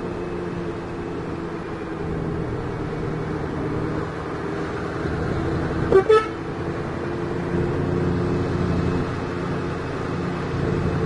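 Vehicle engine running steadily under way, heard from inside the cab, with two quick toots of a horn about six seconds in.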